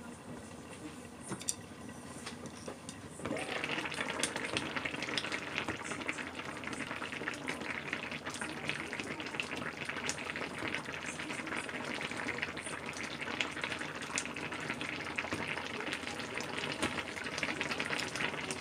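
Sukiyaki broth simmering in a pot, first muffled under its glass lid; about three seconds in it suddenly turns louder as the lid comes off, a steady crackling bubble and sizzle with chopsticks stirring through the beef and tofu.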